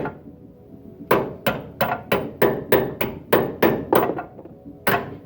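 Hammer striking metal again and again, knocking a stuck washer loose: about ten sharp blows at roughly three a second, a short pause, then two more near the end.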